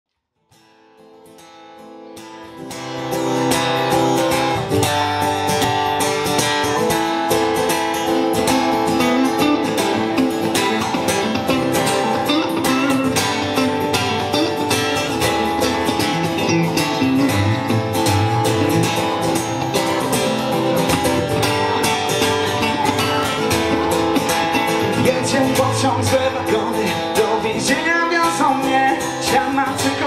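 Instrumental intro played live on an electric guitar and an acoustic guitar, fading in over the first few seconds and then strumming and picking steadily.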